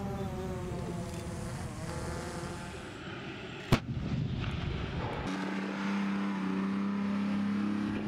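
Armoured military vehicle engines running: a tracked tank's engine while it drives, one sharp bang a little before halfway, then a steady engine drone from a wheeled armoured vehicle.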